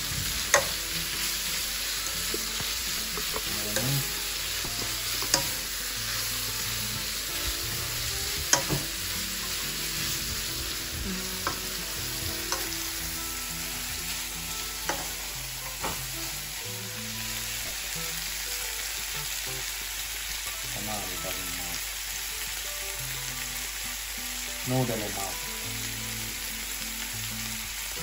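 Instant noodles, pork and vegetables sizzling steadily in a hot frying pan as they are stir-fried, with a scattering of sharp taps where the plastic spatula strikes the pan.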